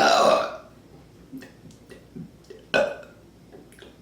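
A woman's loud burp about half a second long at the start, then a second, shorter burp near three seconds in: gas brought up by the bottle of ginger ale she has just chugged.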